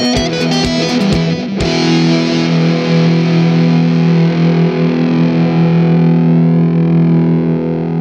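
Rock music with distorted electric guitar over sharp percussive hits. About a second and a half in, the hits stop and a final distorted guitar chord rings out, slowly fading.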